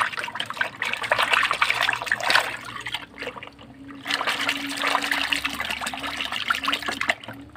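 Water sloshing and splashing in a shallow plastic tub as a hand swishes and scrubs a small toy vehicle in it. It comes in two spells of a few seconds, with a short lull about three seconds in.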